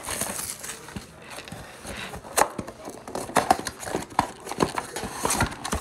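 Cardboard Bowman Sapphire trading-card box being handled and opened: irregular taps, clicks and scrapes of cardboard as the top flap is worked open, with one sharper tap about two and a half seconds in.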